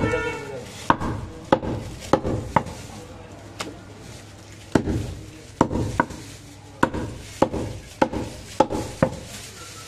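Butcher's cleaver chopping mutton on a wooden chopping block: a run of sharp, uneven chops, about fourteen in all, sometimes in quick pairs.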